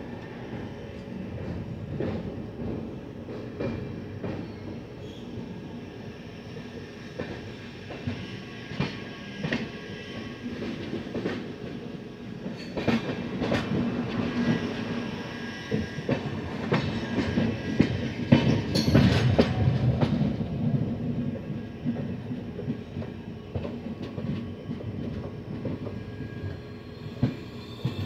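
Passenger express train running on the track, with a steady rumble and the clickety-clack of wheels over rail joints. It grows louder about halfway through, then eases off again.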